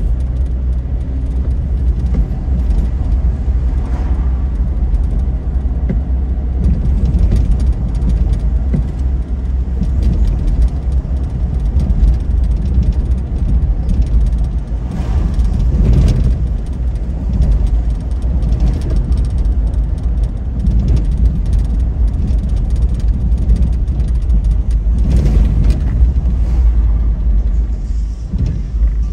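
Car driving on a wet road: a steady low rumble of engine and tyres, with louder hissing swells about halfway through and again near the end.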